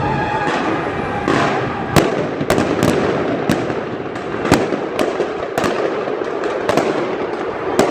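Fireworks going off: a continuous crackle, with sharp bangs at irregular intervals of about half a second to a second from about two seconds in.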